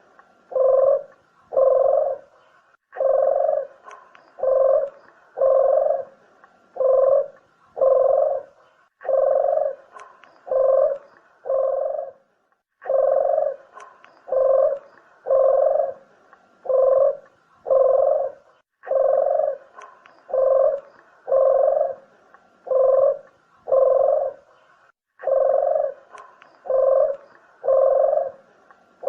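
Puter dove cooing over and over: low, round coos about one a second, in runs that restart every few seconds. It is a repeated lure call for drawing in doves to shoot or trap.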